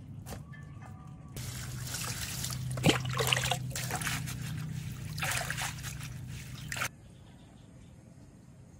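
Water trickling and splashing for several seconds, then stopping abruptly, as in food preparation with water.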